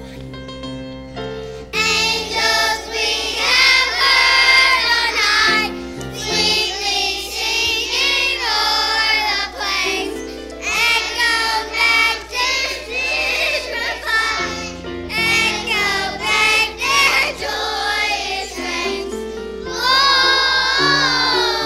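Children's choir singing a song with instrumental accompaniment. The accompaniment plays alone at first, and the voices come in about two seconds in.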